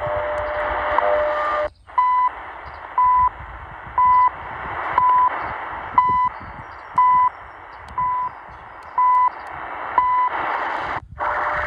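Shortwave static with the CHU Canada time signal on 7850 kHz, played through an Eton Elite Executive portable radio's speaker: a short beep, about a third of a second long, once a second, nine in a row. The sound cuts out briefly as the radio is retuned about two seconds in and again near the end, where a hissy signal with steady tones takes over.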